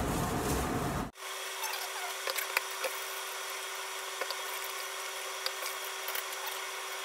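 Grated coconut being squeezed by hands in plastic gloves in a steel bowl to press out coconut milk: irregular wet squelching and glove rustling with small clicks. A steady hum runs underneath, and the louder background drops away about a second in.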